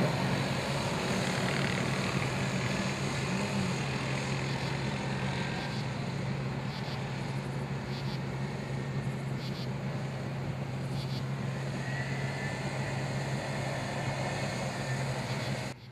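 Small youth ATV engines running as the quads race, a steady engine drone over a broad wash of noise that cuts off suddenly near the end.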